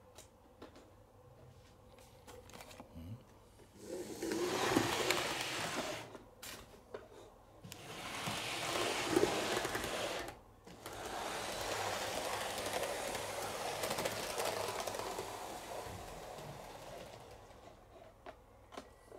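HO scale Fleischmann model electric train running along the track, its small motor and wheels giving a steady whir. It comes in three runs: a short one about four seconds in, another about eight seconds in, and a longer one from about eleven seconds that fades away towards the end.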